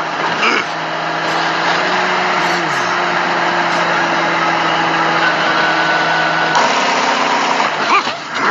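Semi-truck engine running steadily over road noise, with one tone sliding down about three seconds in.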